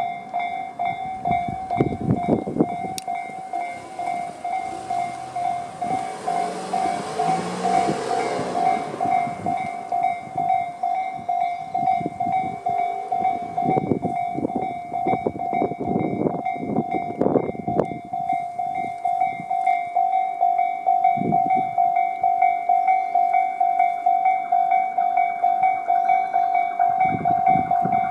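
Japanese level-crossing warning bell (Tobu type C electronic sound) ringing on and on in a fast-pulsing tone. A Tobu 200 series train goes through, its wheels clacking over the rail joints in clusters with a rush of train noise in between.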